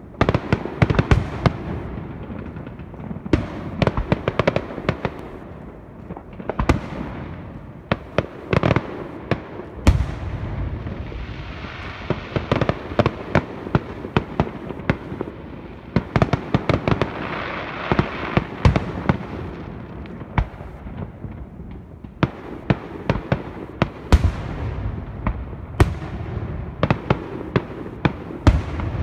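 Aerial fireworks display: shells bursting in a steady run of sharp bangs, many coming in quick clusters, over a continuous noisy background.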